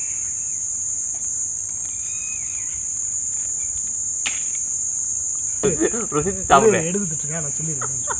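Steady, high-pitched chirring of insects throughout, with a man's voice heard briefly for about two seconds near the end.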